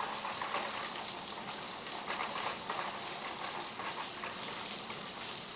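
Heavy rain pouring, a steady hiss dotted with many small splashes and drips. Water coming off the apartment rooftops makes it sound heavier than it actually is.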